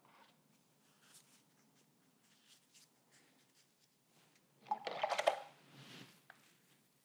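Faint rubbing and rustling of a hand-held paper towel working paint on a textured painting, with one louder crinkly rustle lasting about a second, near the end.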